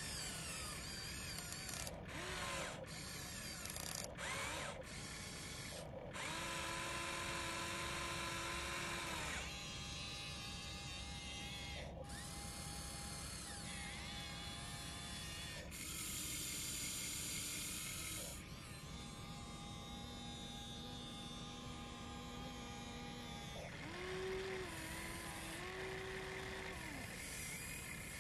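Electric motors and gearboxes of an RC model excavator whining in stretches of a few seconds, the pitch changing as each boom, bucket or swing movement starts and stops.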